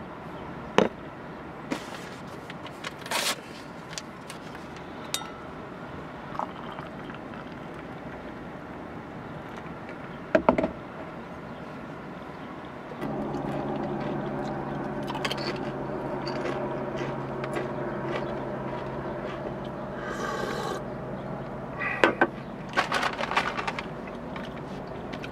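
Clinks and knocks of enamel mugs and a kettle being handled, scattered over a steady background hiss. About halfway through, a low steady hum starts and holds on.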